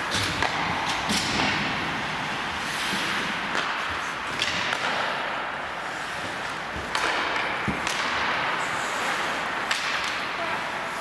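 Ice hockey skates scraping and carving across the ice, with several sharp clacks of sticks hitting the puck.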